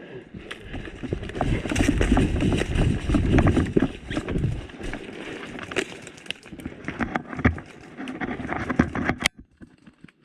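Rustling, scuffing footsteps and small knocks of someone moving through woodland undergrowth, close to a helmet-mounted camera's microphone. Loudest in the first half, thinning out later, with one sharp click near the end.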